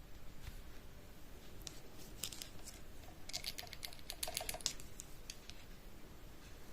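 A quick series of light clicks, a few about two seconds in and a denser run from about three to five seconds in.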